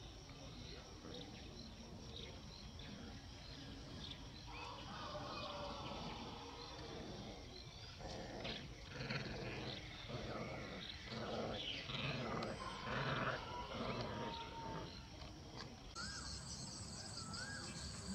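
Dogs growling in a string of short, rough bursts, heaviest from about eight to fourteen seconds in.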